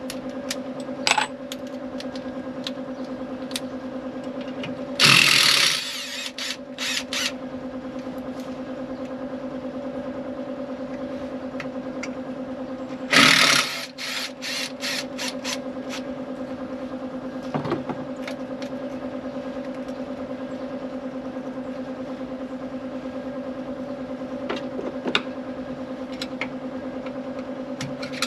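Tool work on a Volvo VNL760 truck's engine: two short, loud whirring bursts, about five and thirteen seconds in, each followed by a quick run of clicks, with scattered single clicks. A steady low hum runs underneath.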